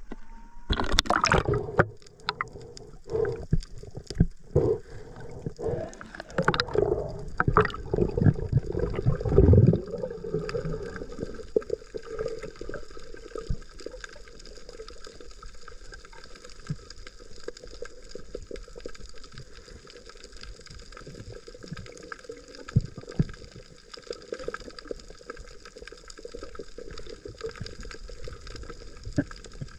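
Water splashing and gurgling, loud and choppy for the first ten seconds or so. It then settles into a quieter, steady gurgling wash with a faint constant hum.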